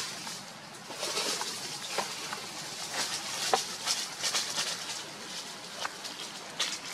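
Dry leaf litter rustling and crackling under a long-tailed macaque's feet as it walks over the forest floor, a string of short crunches.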